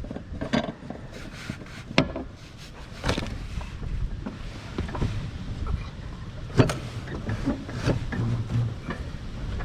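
Scattered metal clicks and knocks from hand tools on a mower blade and its bolt as the blade is tightened by hand under a zero-turn mower deck, with a few sharper knocks among them.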